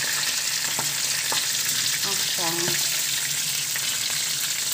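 Fresh sausages sizzling in hot oil in a frying pan, the water they were simmered in having cooked off so they now fry in the fat. A couple of short clicks sound in the first second and a half.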